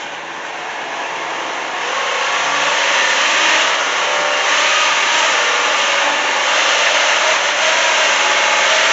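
A motor-driven machine running loud and steady, building up over the first three seconds.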